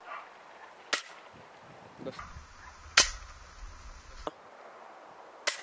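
4.5 mm air rifle shots at a Li-Po battery: three sharp cracks, about a second, three seconds and five and a half seconds in, the middle one loudest.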